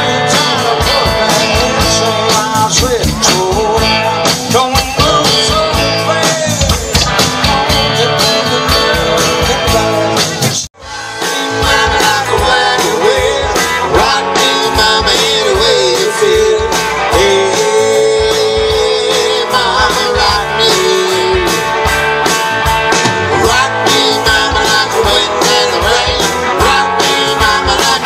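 Live rock band playing, with electric guitars, bass and a drum kit. The sound drops out for a split second about ten seconds in, then the band carries on.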